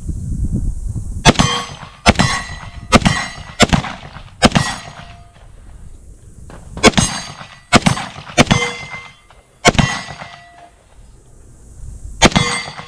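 About ten shots from a Glock 40 10mm pistol fired in two quick strings, about one a second, each hit followed by the short ringing clang of a steel target.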